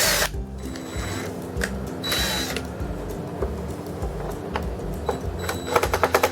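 Driver bit slipping in a screw head as a screw is driven into plastic: a fast run of sharp popping clicks near the end. The bit is the wrong size for the screw. Background music plays throughout.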